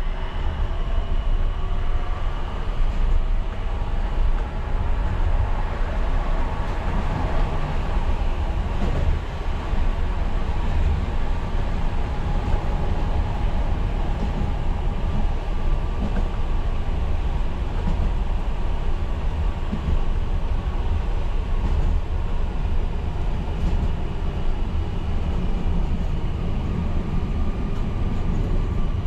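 Škoda 03T Anitra low-floor tram running along the track: a steady low rumble of wheels on rails with faint whining tones over it.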